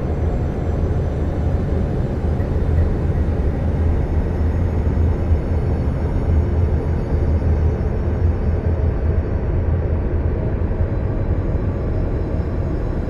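Steady low rumbling drone of a space-ambience soundtrack, a deep hum with a noisy wash above it and no breaks or sudden events.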